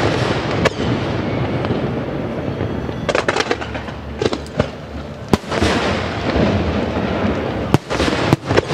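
Aerial firework shells bursting in a display: sharp bangs at irregular intervals, a quick cluster of several about three seconds in, with a continuous rumbling echo between the reports.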